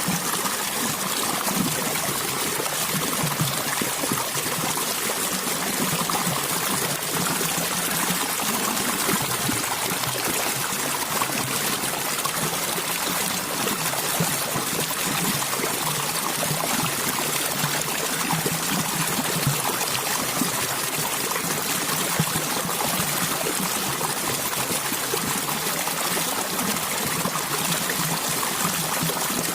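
Running water flowing and trickling steadily without a break.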